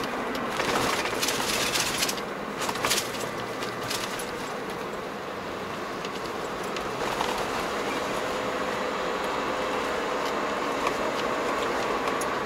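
Steady road and engine noise inside a moving car's cabin, with a louder rushing hiss for a couple of seconds near the start.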